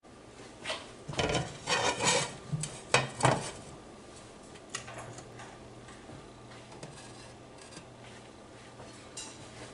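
A frying pan knocking and scraping on a glass-top stove as it is moved onto the burner: a run of clatters in the first few seconds, then only a few light taps over a low steady hum.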